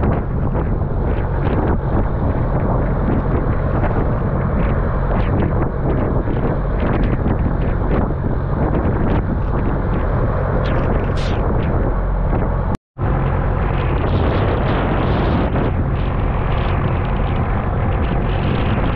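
Heavy wind buffeting the microphone over the steady drone of a fishing boat's diesel engine, with waves crashing and spraying against the hull as the bow slams through rough sea. The sound drops out for an instant a little past the middle.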